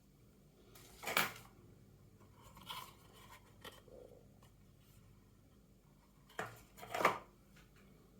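Several brief handling noises in a small room, the two loudest about a second in and near the end, with a few fainter ones between.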